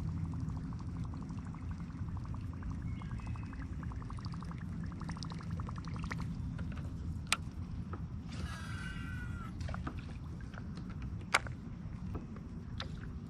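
Wind rumbling on the microphone over water lapping and splashing against a small boat. A rapid even ticking runs for a few seconds, and a short squeal comes partway through, with two sharp clicks.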